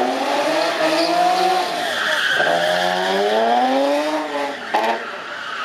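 BMW Z3 drifting: its engine revs in two long rising sweeps with a brief drop between them, while the spinning rear tyres squeal. A short sharp crack comes near the end as the revs fall away.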